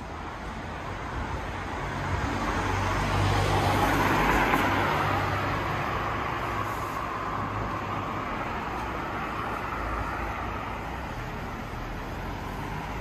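Car traffic on a wet street: tyres hissing on the rain-soaked road as a car passes, swelling to its loudest about four seconds in and then fading slowly, over a steady low engine hum.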